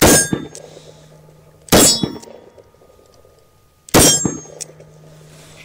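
Three shots from a Taurus Poly Protector .357 Magnum revolver, about two seconds apart, each followed by the ring of a struck steel target.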